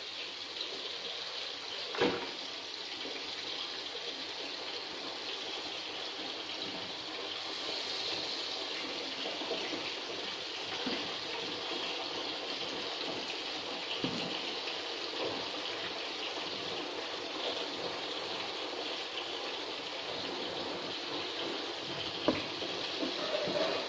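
Steady rushing noise of running water, with a light knock about two seconds in and another near the end.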